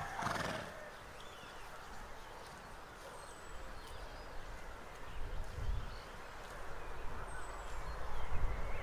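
Quiet rural outdoor ambience with faint birds calling: a few short, high chirps. A low rumble rises in the second half and is loudest near the end.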